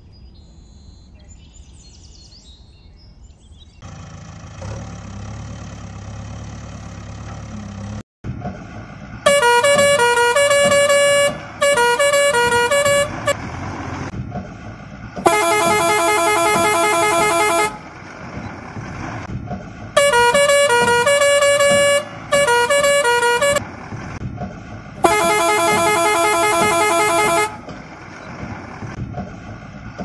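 Loud truck-horn blasts, about six of roughly two seconds each starting about nine seconds in; some are choppy and warbling, others a steady held tone. A low hum comes before them and a low rumble runs between them.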